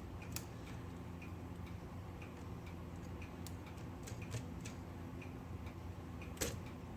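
Light, uneven clicks from a vintage Smith Corona typewriter's mechanism as a part is worked by hand. The part catches where it should move smoothly, and the repairer puts this down to a bent piece underneath.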